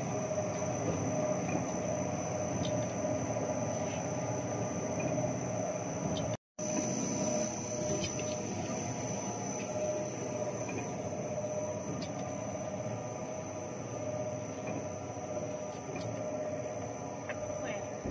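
Automatic steamed-bun forming machine running: a steady mechanical whir with a constant high whine. It cuts out for a split second about six seconds in.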